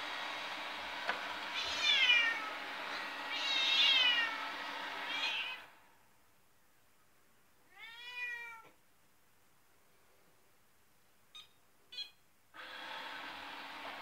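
A cat meowing several times in falling-pitched calls over the steady hum of a robot vacuum. The vacuum's hum cuts off about five and a half seconds in, the cat meows once more into the quiet, and after two short clicks the hum starts up again near the end.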